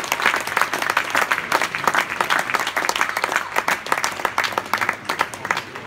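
Audience applauding, a dense patter of clapping that thins out to a few scattered claps near the end.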